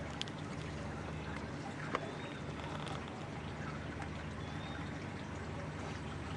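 Water lapping and trickling, over a steady low hum, with a single sharp click just under two seconds in.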